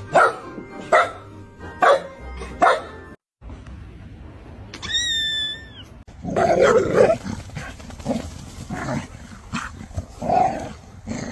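A dog barking: four sharp barks a little under a second apart, then after a short break a brief steady high tone, then a longer run of louder, rougher barks and yaps.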